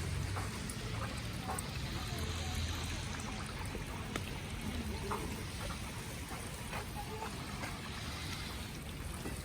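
Water trickling and running on a wet, snowy street: a steady hiss with scattered small drips and clicks.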